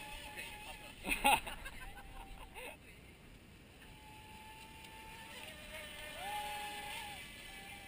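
High electric motor whine of RC speedboats running fast, among them a HobbyKing TFL Pursuit with a Leopard 4074 2000kv brushless motor on 4S; the pitch holds level, then rises and falls with throttle near the end. A brief burst of noise about a second in is the loudest moment.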